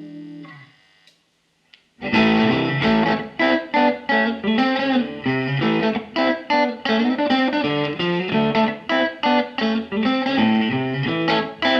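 Ibanez AZES31 electric guitar through a Mesa Boogie Express 5:25 tube amp. A held chord fades out in the first second, followed by about a second of quiet broken by a small click. About two seconds in, a fast riff begins, made of short picked notes and chords with brief stops between phrases.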